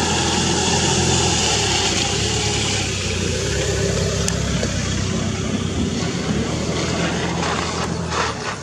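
An engine running steadily: a low, even hum with a broad hiss over it, unchanging throughout.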